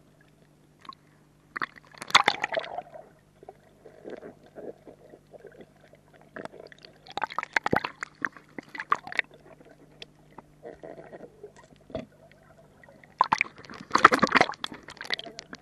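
Water sloshing and bubbling around a submerged action camera, with loud bursts of splashing about two seconds in, again around the middle, and near the end, over a faint steady hum.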